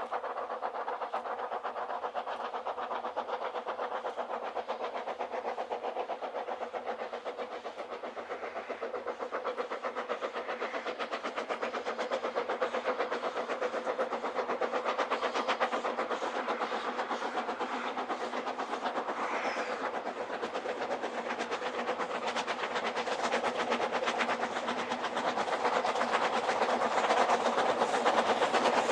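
Narrow-gauge steam locomotive working hard with a train, its exhaust chuffing in a fast, steady beat, growing louder as it approaches.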